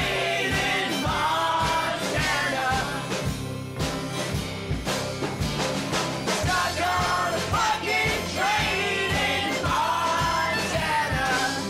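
Rock song with a sung vocal line over a steady drum beat.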